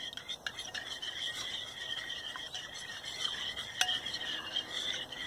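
A spoon stirring a thick, runny glue-and-baking-soda slime mixture in a glass bowl, with a few light clicks of metal on glass, the sharpest near the end. Behind it runs a steady high-pitched chorus of calling animals.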